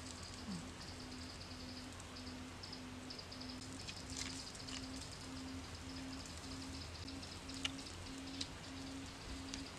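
Faint outdoor ambience: a rapid high chirring and a low tone pulsing about twice a second, with a few sharp clicks.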